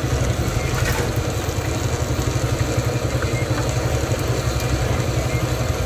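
A steady, fast low throb like an idling engine, under the sizzle of a large egg-filled fried bread cooking in a pan of deep oil.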